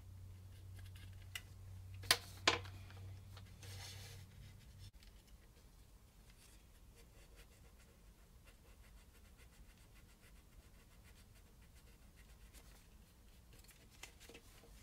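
Faint clicks and scraping from a plastic HO scale locomotive shell being handled and worked with a small hand tool: two sharp clicks about two seconds in and a brief scratchy rub around four seconds. A low hum stops about five seconds in.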